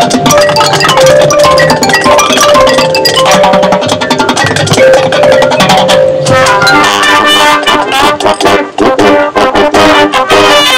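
High school marching band playing its field show: brass holding long chords over drums and front-ensemble percussion, changing about six seconds in to a busier passage of short, accented hits.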